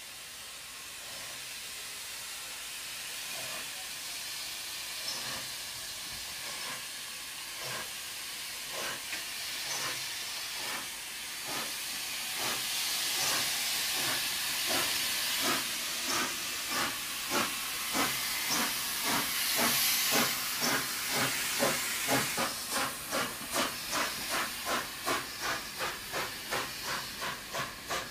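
NG/G16 Garratt steam locomotive No. 87 starting its train from a standstill, with a steady hiss of steam. A few seconds in, its chimney exhaust beats begin and quicken from about one a second to two or three a second as it gathers speed.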